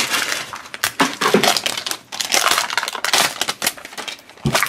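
Crinkly plastic wrapper of a blind-bag toy crackling as it is pulled off a small plastic pet-carrier case, with sharp clicks and a knock near the end as the hard plastic case is handled.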